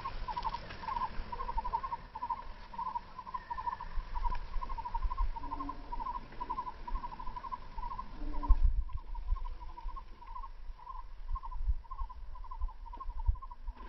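An animal's call: one steady-pitched note repeated about two to three times a second without a break, with wind rumbling on the microphone.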